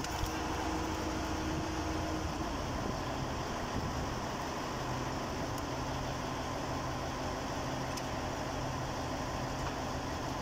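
Heavy machinery engine running steadily with a low drone; the pitch of the hum drops a few seconds in.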